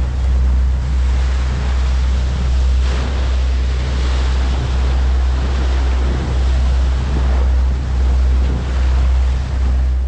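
Boat under way: a steady low engine drone, with water rushing past the hull and wind on the microphone.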